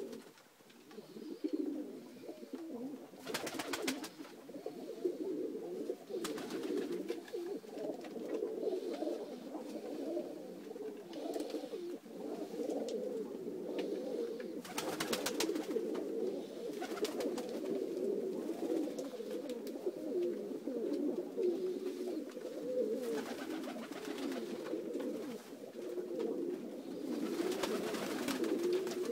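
A flock of domestic pigeons cooing continuously, many voices overlapping. Brief bursts of clattering come about three seconds in, around the middle and near the end.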